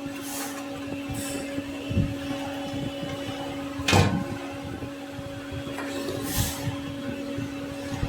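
Clicks, knocks and rustles of hands working on a plastic device housing and its circuit boards, with a sharper knock about four seconds in, over a steady low hum.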